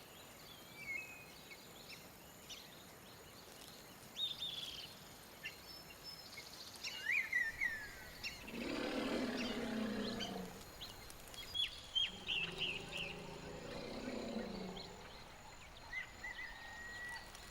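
Short bird chirps over outdoor ambience, with two drawn-out low animal calls, one starting about halfway through and falling in pitch at its end, and a second a couple of seconds later.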